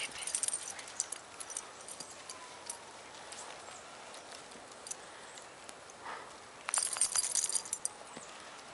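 Short bursts of crisp clicking and crunching as two leashed dogs and their walker move about in fresh snow, once in the first second and again, more densely, near the end, over a faint hush.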